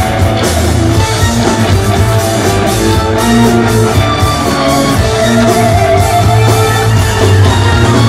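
Rock band playing live: electric guitar, bass, drum kit and keyboards, loud and continuous.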